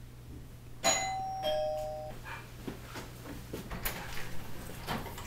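Two-tone ding-dong doorbell chime: a higher note about a second in, then a lower note half a second later, both ringing together and stopping at once. A few light clicks follow.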